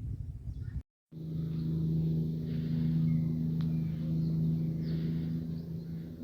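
A steady motor hum with a low drone and overtones, with birds chirping faintly above it. The hum starts after a brief cut to silence about a second in, which replaces a rumbly outdoor sound with birds.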